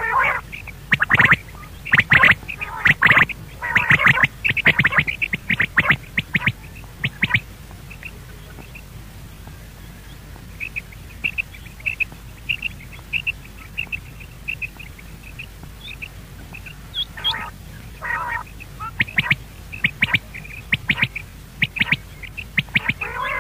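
Game bird calling: loud clusters of short, harsh calls through the first seven seconds and again from about 17 seconds on, with a row of faint high chirps, about two a second, in between.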